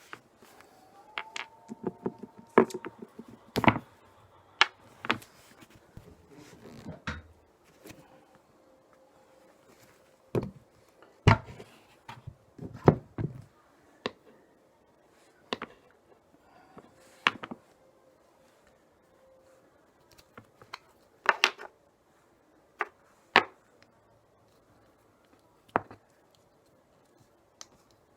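Irregular clicks and knocks of hand work on a tyre and wheel, metal and plastic parts being handled and set down, busiest in the first half and sparser towards the end.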